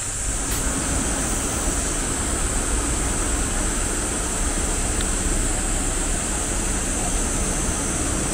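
Steady outdoor roadside ambience: an even rushing noise with a constant high hiss on top, unchanging throughout.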